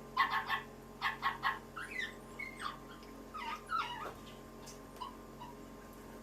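Animal calls: two quick groups of three or four short yelps, then several short whining calls that slide up and down in pitch, fading out about two-thirds of the way through, over a steady electrical hum.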